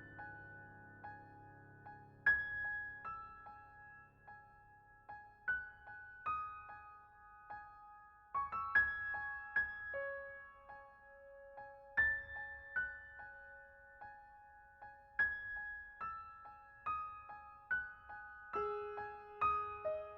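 Background music: a slow, gentle piano melody of single struck notes that ring and fade, with a denser run of notes near the end.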